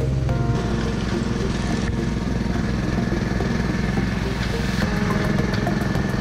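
Small engine of a go-kart-style ride car running steadily as the car drives along.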